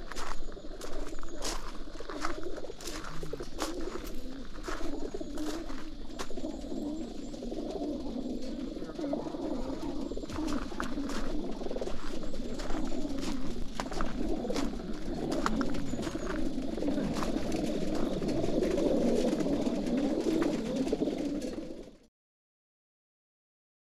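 A crowd of racing pigeons packed in stacked wire transport crates, cooing together in a dense, continuous chorus that grows louder toward the end, with scattered sharp clicks and taps. The sound cuts off suddenly near the end.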